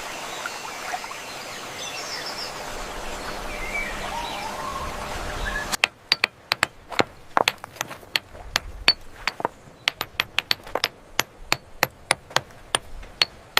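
Steady outdoor ambience with faint bird chirps. About six seconds in it changes abruptly to a run of sharp knocks, about three a second, like repeated strikes of a hard tool.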